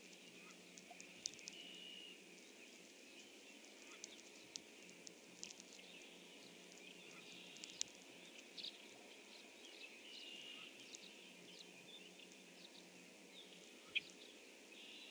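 Faint outdoor ambience with scattered calls and chirps of several small birds, including a couple of short, steady whistled trills. One sharp click about fourteen seconds in.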